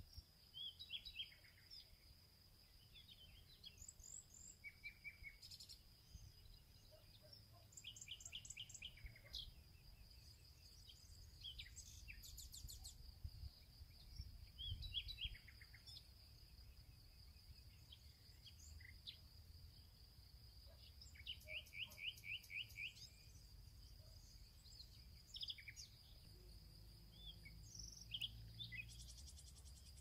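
Quiet nature ambience: several small birds chirping and trilling in short phrases, some as quick runs of repeated notes, over a steady high-pitched insect drone and a faint low rumble.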